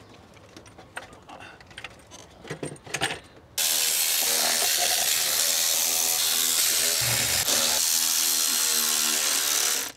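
Cordless electric ratchet running steadily for about six seconds, driving in intake manifold bolts, then cutting off abruptly. Before it starts there are a few light clicks and knocks from tools and parts being handled.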